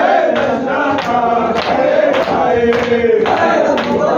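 A group of men chanting a noha (Shia lament) together in a sustained, drawn-out melody. Sharp, regular slaps of matam (chest-beating) keep time at about two a second.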